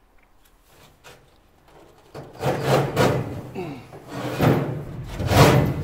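Steel flue pipe scraping and grating against the bent sheet-metal tabs of a hole in a barbecue as it is forced down into place, in several rough strokes starting about two seconds in.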